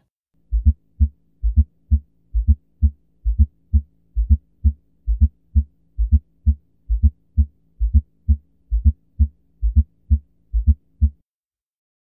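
Heart sounds heard through a stethoscope with an S4 (atrial) gallop: low-pitched thuds repeating in a galloping rhythm, the extra fourth sound falling just before S1. It is the sign of the atria forcing blood into stiff, non-compliant ventricles, a finding that is always pathological. A faint steady hum runs beneath, and the beats stop about a second before the end.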